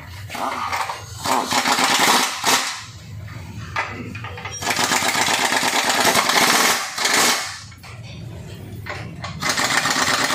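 Impact wrench hammering on the bolts of a car's front subframe in three bursts of about two to three seconds each, the last starting about nine seconds in.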